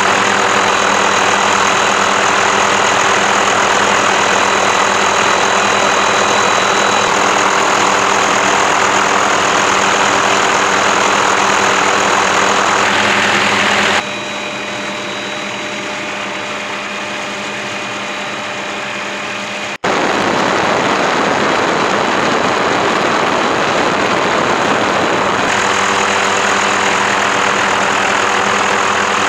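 Steady engine noise: a broad, even rush with constant whining tones. About halfway through it drops in level for some six seconds, breaks off for an instant, then returns as before.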